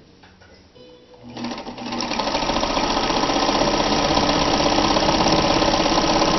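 Kenmore 158.13033 sewing machine starting up about a second in and speeding up to a fast, steady stitching clatter, running with its feed dogs dropped for free-motion sewing.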